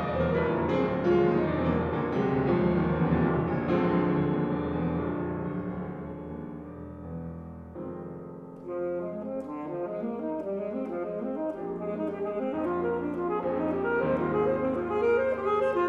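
Alto saxophone and piano playing a contemporary classical sonata. The dense, loud playing thins and quietens about halfway through, then quick short notes build back up in loudness.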